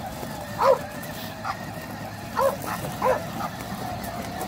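Bulldog barking: about four short, single barks, spaced unevenly.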